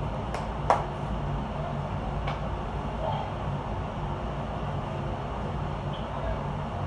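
Steady low rumble, with a few sharp clicks in the first seconds.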